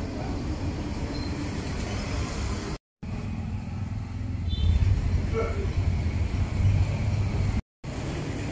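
Outdoor street ambience with a steady low rumble of traffic, a little louder in the middle. The sound drops out twice for a moment.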